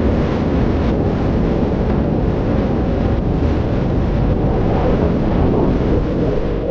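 Rushing whitewater and a waterfall in a narrow rock canyon: a steady, loud, low roar of churning water close to the microphone.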